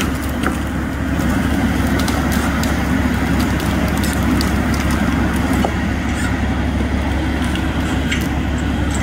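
Heavy diesel logging machinery running steadily, a continuous low engine drone, with scattered light clicks over it.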